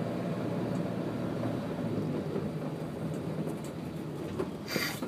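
Vehicle running slowly over a wet road, heard from inside: a steady low engine hum with tyre noise, and a brief sharp noise near the end.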